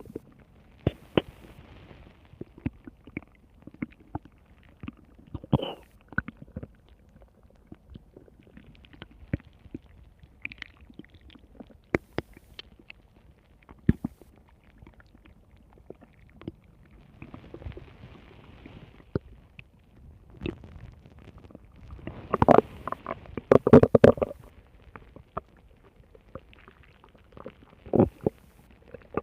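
Stomach growling and gurgling: a run of short pops and bubbling gurgles, with a louder stretch of rumbling about twenty-two seconds in.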